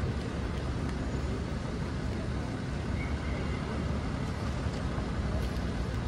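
Steady rumble of city street traffic, a low, even noise of passing cars and other vehicles.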